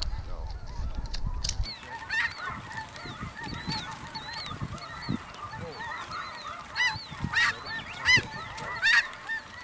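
Snow geese calling: many overlapping high, yelping honks from a flock, with a few louder calls from birds closer by near the end. A low rumble fills the first second and a half.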